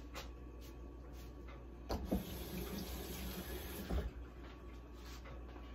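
Kitchen tap turned on and running into the sink for about two seconds, then shut off, with a knock as it starts and another as it stops.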